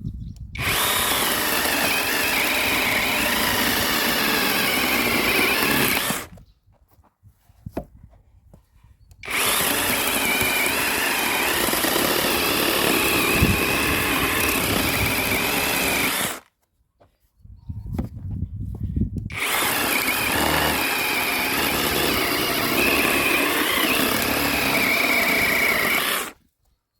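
IETO HD 215 cordless battery chainsaw running in three long bursts of about seven seconds each, with short pauses between, its electric motor whining at a pitch that wavers as it cuts through wood.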